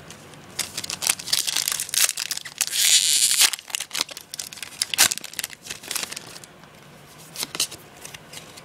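A Yu-Gi-Oh booster pack's foil wrapper being crinkled and torn open by hand, with one longer, louder rip about three seconds in. Quieter rustling of the cards being handled follows near the end.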